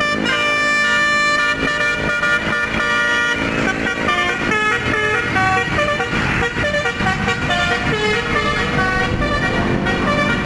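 Multi-tone 'telolet' bus air horn playing a tune. Several notes sound together and change pitch in quick steps, without a break.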